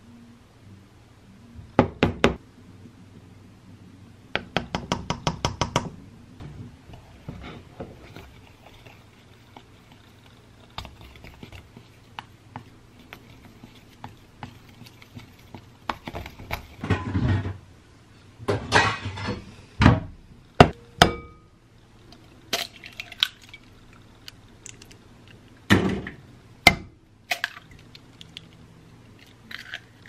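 A utensil scraping and tapping in a glass measuring cup of flour, with a quick run of taps about five seconds in and scattered sharp knocks of kitchenware on a wooden cutting board.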